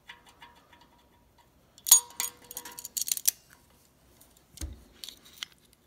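Metallic clicks and clinks of locking pliers (vise grips) being handled and clamped onto the cast-iron wall of an engine block, with a louder clatter of clicks and a short ring of metal about two seconds in and a dull thump near the end.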